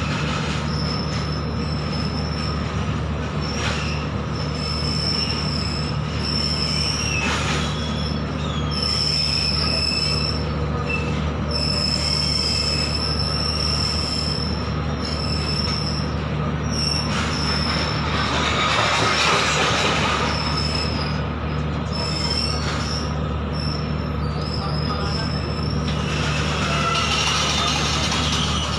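Freight train wagons rolling past with a steady low rumble of wheels on rail. A high-pitched wheel squeal comes and goes again and again, and a louder rush of rolling noise swells twice, about two-thirds of the way through and near the end.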